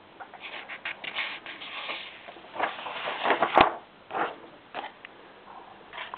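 Paper pages being turned over in a ring binder: irregular rustling and handling noise, with one sharp click about three and a half seconds in.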